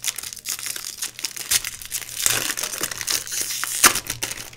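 Foil trading-card pack torn open by hand, the wrapper crinkling and crackling, busiest midway, with one sharp crackle near the end.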